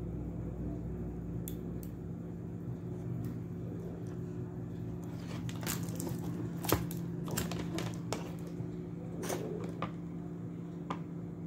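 Small clicks and taps of hands handling a circuit-board panel, scattered through the second half with the sharpest tap a little past the middle, over a steady low hum.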